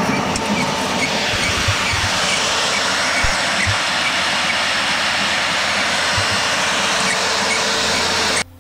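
Homemade auger concrete mixer running: a steady motor and chain-drive whine under the rasp of dry concrete mix being churned in the hopper, with a few low thuds. The sound cuts off suddenly near the end.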